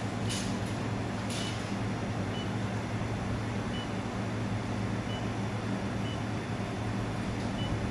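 Steady electrical hum and fan noise of a running handheld laser welding machine, with short faint high beeps about once a second.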